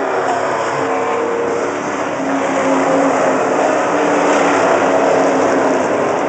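Several late-model stock cars' V8 engines running hard as the cars race around a paved oval: a loud, steady, continuous engine noise with no break.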